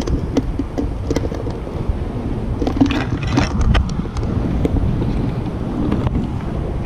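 Wind buffeting the microphone as a steady low rumble, with scattered short clicks and knocks, several of them close together in the middle.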